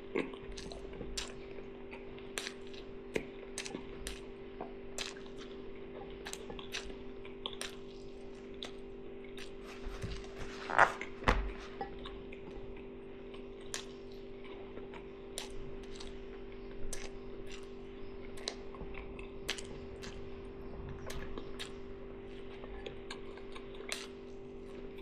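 Close-up eating sounds: chewing with scattered small clicks and clinks of cutlery on a plate, and one louder knock near the middle, over a steady hum.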